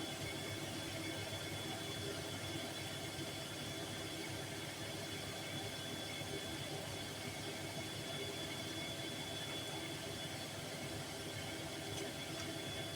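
Bosch Series 4 front-loading washing machine in its final spin at 800 rpm: a steady whir of the spinning drum and motor with a thin high whine, holding an even speed.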